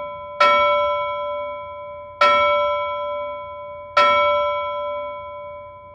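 A bell chime, the same tone struck three times about two seconds apart, each strike ringing on and slowly fading.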